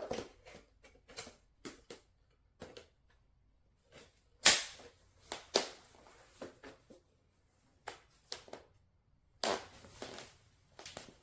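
Irregular clicks and knocks of hard objects being handled, with one sharp, loud knock about four and a half seconds in and quiet gaps between.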